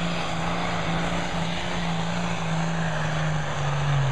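A John Deere farm tractor's diesel engine runs hard under full load while pulling a weight-transfer sled. It holds a steady note, and the pitch drops a little near the end.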